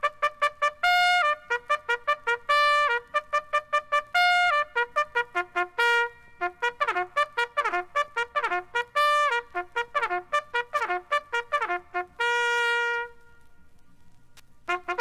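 Solo brass instrument, trumpet-like, playing quick staccato runs broken by a few held notes, played back from a 1972 stereo demonstration vinyl record. The playing stops for about two seconds near the end, then starts again.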